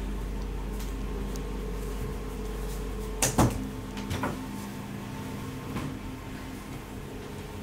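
A sharp double knock, like a cabinet or door shutting, about three seconds in, followed by a few lighter clicks. A steady electrical hum runs underneath, and a low rumble drops away right after the knock.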